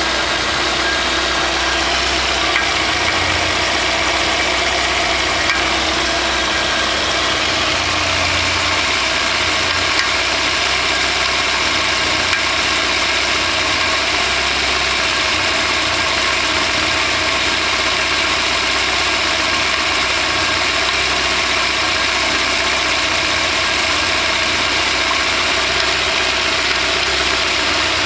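Car engine running steadily with a knock that appeared after the piston group and exhaust valves were replaced; the cause is unknown, and the bottom end has been checked and found tight.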